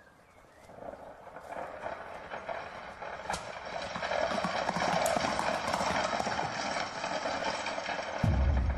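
Many work boots tramping and shuffling together as a large troupe walks in formation, a dense clatter that starts faint and grows louder over the first few seconds. A short, deep thud comes near the end.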